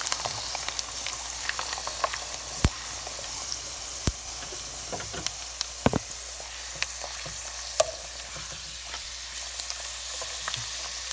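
Gim-bugak, dried laver chips coated in glutinous rice paste, deep-frying in hot oil in a pan: a steady sizzle with sharp pops and crackles every second or two.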